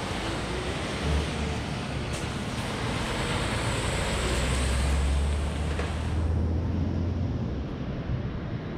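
A motor vehicle passing close by on the street: a rush of engine and tyre noise with a low engine rumble that swells to its loudest a little past halfway, then fades.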